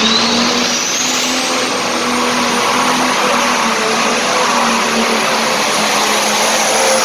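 A hot farm pulling tractor's turbocharged diesel engine running hard under full load during a pull. A high turbo whine rises over the first second or so, then holds steady above a dense engine roar.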